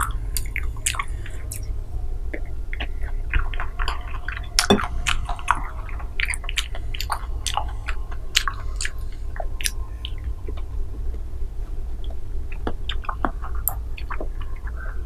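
Close-up wet chewing of soft fruit jelly: many small smacks, squishes and mouth clicks at an uneven pace, over a low steady hum.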